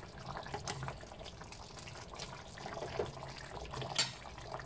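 Dark soy-sauce chicken gravy simmering in a wok: a faint bubbling with small scattered pops, and one sharper click about four seconds in.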